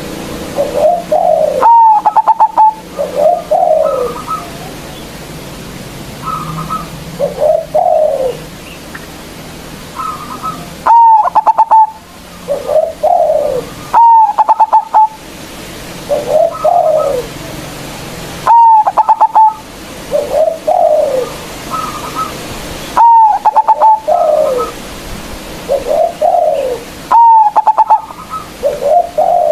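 Zebra dove (local perkutut) singing its cooing song over and over: each phrase opens with a short high note and a rapid stutter of notes, then lower, curving coos, repeating about every four seconds.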